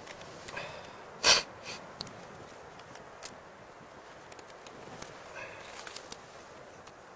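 Knife carving a latch notch into a nearly green wooden stick: a few short scraping cuts, the loudest about a second in, with quieter ones near the middle and toward the end.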